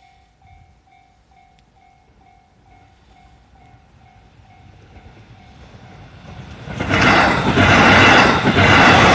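Level-crossing warning bell dinging about two and a half times a second while the rumble of an approaching JR E531 series electric train grows. About seven seconds in the train reaches the crossing and passes loudly, its wheels clattering in a steady rhythm over the rail joints.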